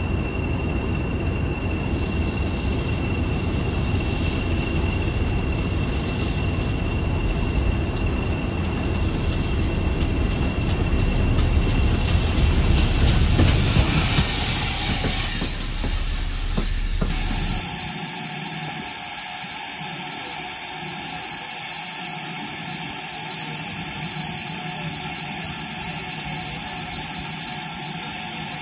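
Ex-GWR 5700-class pannier tank locomotive 7714 running past with its coaches, louder as it nears, with a thin steady high squeal over the first part and a burst of steam hiss as the engine goes by about halfway through. From about two-thirds in, a quieter steady hiss from the locomotive standing in steam.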